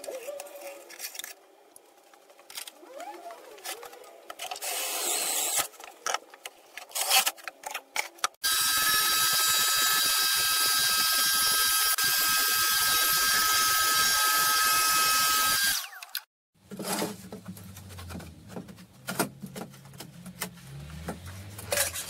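An electric power tool's motor runs steadily for about seven seconds with a high whine, starting and stopping abruptly. Before it come scattered knocks and clicks of wood being handled on a metal saw table.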